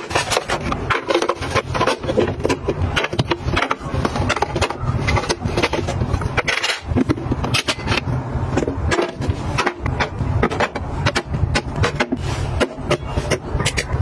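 Plastic organizer boxes, cosmetic jars and lids being set down and slid on the glass shelves of a bathroom mirror cabinet: a busy run of clicks, taps and light scrapes over a steady low hum.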